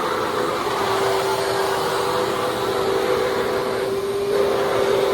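Sanitaire commercial vacuum cleaner running steadily, its motor a constant hum with two held tones over a steady rush of air.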